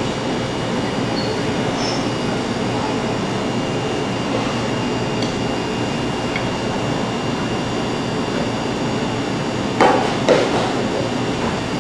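Steady machine-like background noise in a kitchen. About ten seconds in come two sharp knocks, about half a second apart, as kitchen utensils strike a mixing bowl.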